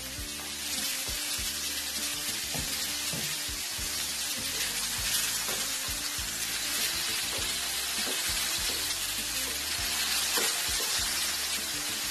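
Chopped vegetables sizzling in a little oil in a frying pan, stirred with a wooden spatula that scrapes and knocks against the pan now and then.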